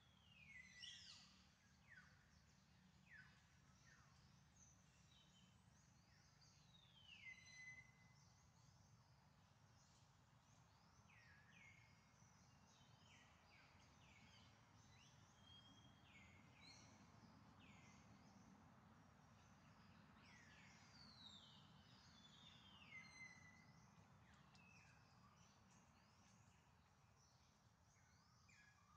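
Faint outdoor ambience with many short whistled bird calls, each sliding down in pitch, scattered throughout; the loudest come about a second in, around seven seconds in and near twenty-three seconds in.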